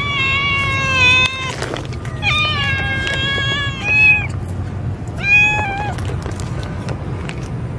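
Stray kitten meowing, begging for food: a drawn-out meow that trails off early on, then a second long meow, followed by two short ones. A steady low rumble runs underneath.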